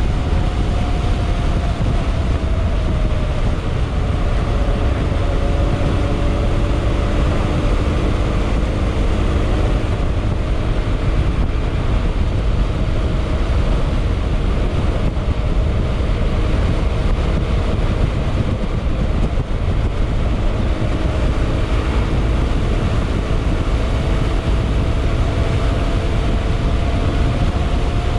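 Yamaha XMAX scooter's single-cylinder engine and exhaust running under way, its pitch drifting gently down and then up again with the throttle, under a heavy wind rumble on the microphone.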